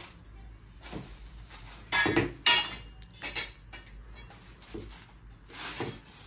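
White metal tubes of a clothes-hanger stand clinking and knocking against each other as they are handled during assembly: a few separate sharp metallic knocks, the loudest about two seconds in.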